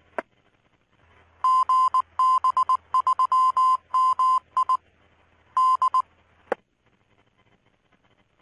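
FM repeater sending its identification in Morse code: a tone near 1 kHz keyed on and off in short and long pulses over the repeater's open-carrier hum, heard through the receiver's speaker. The repeater carrier then drops about six and a half seconds in with a sharp squelch click.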